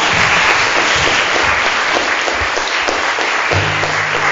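Audience applauding, with music playing; a low held note comes in near the end.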